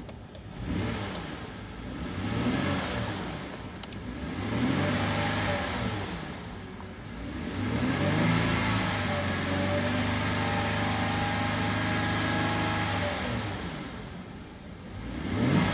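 Holden Commodore 3.6-litre Alloytec V6 catching just as it begins, then revved up and down a few times. It is held steady at about 2,500 rpm for some five seconds, drops back to idle, and is blipped once more near the end. Heard from inside the car's cabin.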